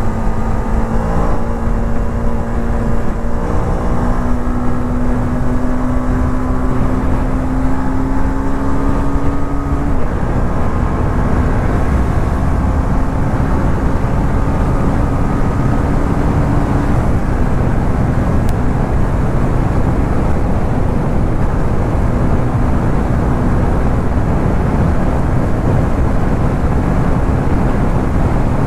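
Motorcycle engine running at speed under a steady rush of wind noise. The engine note rises slowly for about ten seconds, drops sharply, then holds steady.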